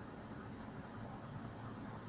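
Fagor LVC-21 dishwasher running: a steady low hum with an even hiss above it.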